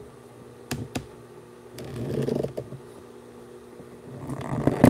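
Handling noise from a dress form and its metal stand: a couple of light clicks and knocks, stretches of rustling, and a sharper knock near the end. A faint steady hum runs underneath.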